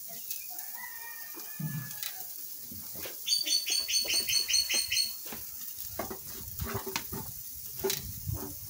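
A bird sings a quick trill of about a dozen high, evenly spaced notes, about seven a second, lasting roughly two seconds a few seconds in. Scattered light clicks and knocks follow.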